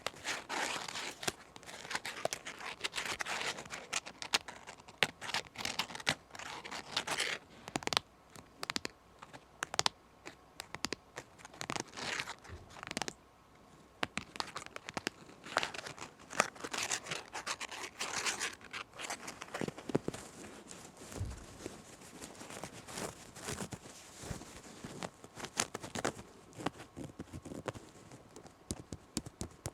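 Close-up scratching and rubbing on fabric, in irregular strokes with many sharp little ticks and a brief pause about halfway through.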